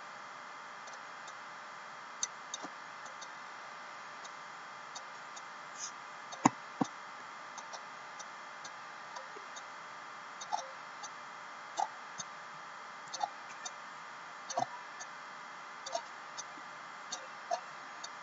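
Computer mouse clicking now and then: single sharp clicks a second or two apart over a steady hiss, the loudest about six and a half seconds in.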